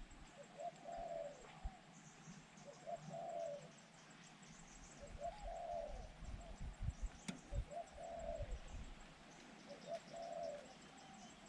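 Zebra dove cooing: about five soft rolling coo phrases, roughly one every two and a half seconds. This is the trapper's decoy bird calling from the trap cage to lure wild doves.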